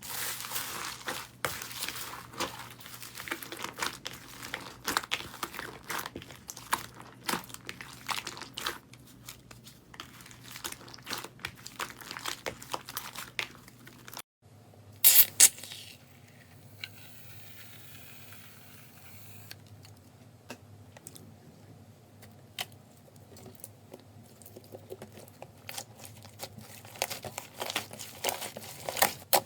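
Slime being worked by hand, crackling and popping with dense, fast clicks. After a cut about halfway it turns quieter, with one loud pop and then scattered clicks that grow busier near the end.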